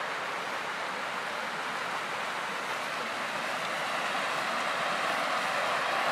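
Mountain stream rushing and cascading over rocks, a steady rush of water that grows a little louder near the end.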